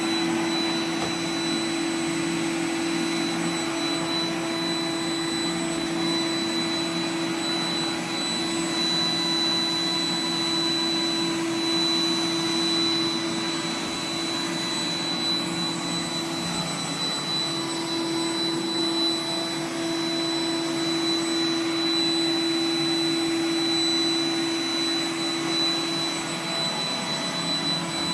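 Roomba 980 robot vacuum running steadily as it vacuums a floor, a constant motor hum with a thin high whine over it.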